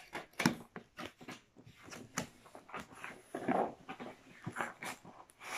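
A cardboard model box being opened and its packaging handled: irregular clicks, knocks and scrapes of cardboard, the sharpest about half a second in, with a longer rustling slide of cardboard a little past the middle.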